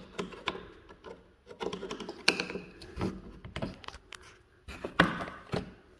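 Flathead screwdriver prying at the plastic tab of a Ford F-150 side mirror housing: a run of small, irregular plastic clicks and scrapes, with sharper snaps about two seconds in and about five seconds in.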